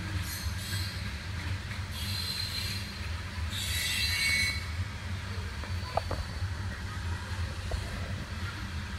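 Train rolling past with a steady low rumble and several bursts of high-pitched wheel squeal, the loudest about three and a half to four and a half seconds in.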